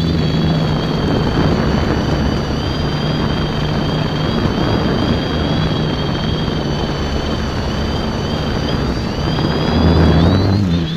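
Quadcopter's electric motors and propellers heard from a camera on the craft itself: a steady high whine over a dense rush of propeller wash and air noise. Just before the end the rushing drops off sharply and the whine shifts in pitch.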